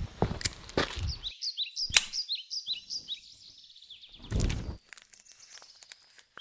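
Footsteps on paving stones for the first second or so. Then a small bird chirps over and over in short, quick, high notes. A sharp click comes about two seconds in, and a brief rush of noise a little after four seconds.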